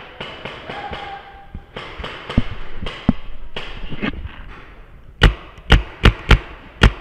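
Paintball marker firing a quick string of about five sharp shots in under two seconds, starting about five seconds in. Before that come scuffs and knocks of a player moving with gear.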